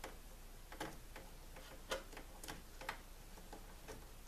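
A few faint, scattered clicks and scrapes of a utility knife blade slitting the outer insulation sheath of a 110-volt power cable.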